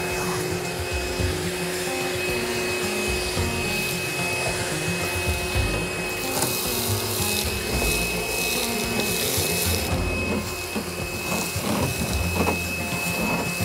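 A steady rushing machine noise with a thin steady whine, under background music; a high hiss grows louder for a few seconds in the middle.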